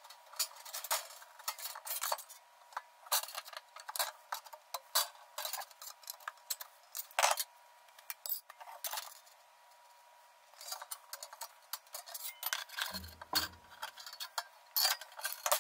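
Hand tin snips cutting thin sheet metal: a quick run of sharp snipping clicks and metal scraping. It stops for a couple of seconds about halfway through and then resumes, with a faint steady high hum underneath.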